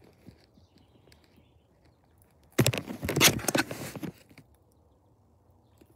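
A burst of crunching and rustling about a second and a half long, beginning a little over two seconds in, with a few faint clicks before it.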